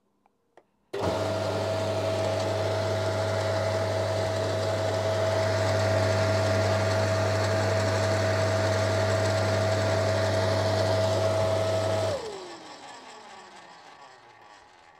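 Electric motor of a Makita UD2500 garden shredder, cover off, switched on for a test run: it starts suddenly about a second in and runs at steady speed with a constant hum and whine. It is switched off near 12 seconds and winds down, its whine falling in pitch as it coasts to a stop.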